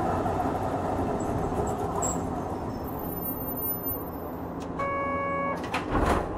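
Onboard running sound of a Hankai Tramway Type 351 tram, a nose-suspended-motor car, dying down over the first few seconds. About five seconds in, a buzzer sounds briefly with one steady tone. A short clatter follows near the end.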